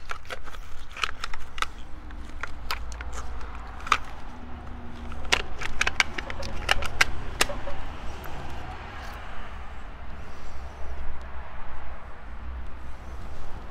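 Metal clicks and taps from gloved hands working the fittings of propane cylinders and a twin-tank regulator, many sharp clicks in the first half, then fewer. Underneath is a steady low rumble of road traffic.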